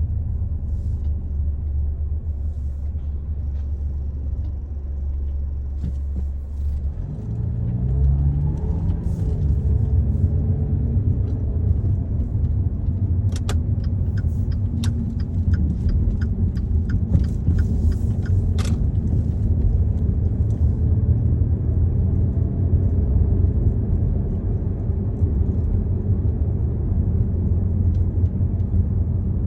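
Car being driven, heard from inside: a steady low road-and-engine rumble, with the engine note rising as the car picks up speed about seven seconds in. In the middle comes a run of sharp ticks lasting several seconds.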